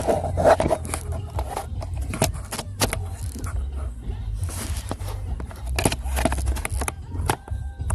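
Low steady rumble of a car idling, heard from inside the cabin, with frequent short clicks and scrapes from things being handled close to the microphone.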